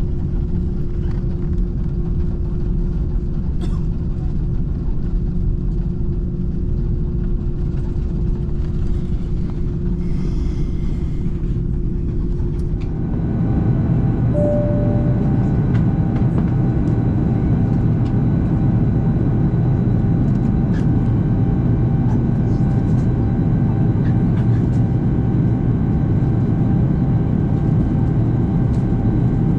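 Airbus A330-900neo cabin noise beside its Rolls-Royce Trent 7000 engine: a steady rumble with a low hum while taxiing. About halfway through it changes to cruise noise, louder and deeper, with several steady whining tones, and a short single tone sounds just after the change.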